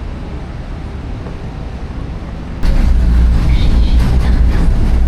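Historic tram running on its rails: a loud, steady low rumble that starts abruptly about halfway through, after a quieter stretch of background noise.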